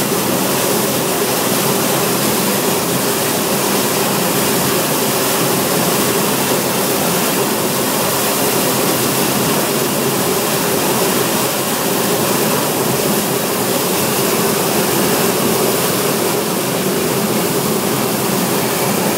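Steady, loud rushing hiss of water jetting from fire hoses during helicopter firefighting training, with a faint steady hum underneath.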